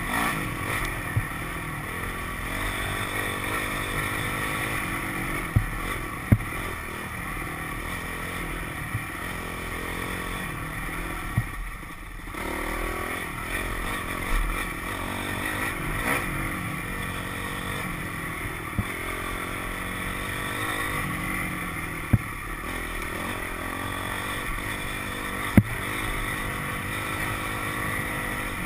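Dirt bike engine running steadily under changing throttle, easing off briefly about twelve seconds in. Several sharp knocks cut through it.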